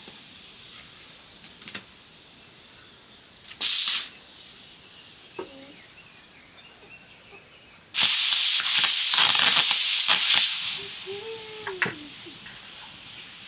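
Two sudden bursts of hissing noise: a short one about three and a half seconds in, and a louder one lasting about two and a half seconds from about eight seconds in, which then fades.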